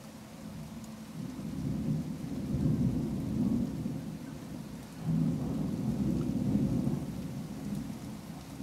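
Rolling thunder: a low rumble builds about a second in, dies down, then breaks out again suddenly about five seconds in before fading.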